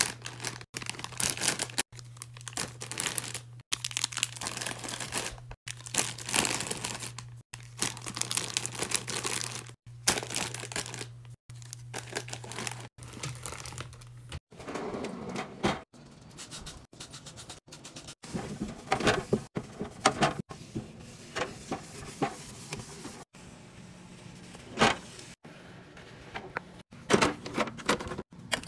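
Crinkly plastic chip bags being handled and packed tightly into a drawer, over a steady low hum. About halfway through, the hum stops and quieter rustling and light knocks follow as plastic squeeze pouches are set into a fridge drawer.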